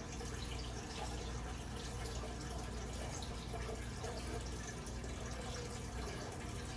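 Aquarium filter running in a turtle tank, its outflow splashing and trickling steadily into the water, with a low hum underneath.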